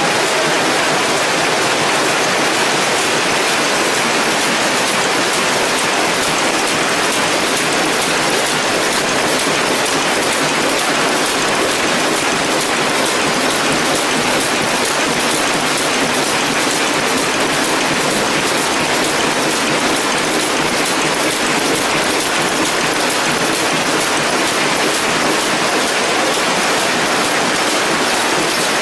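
Automatic bouillon cube feeding and wrapping line running: a steady, dense mechanical clatter of moving parts, like a fast patter, with no break.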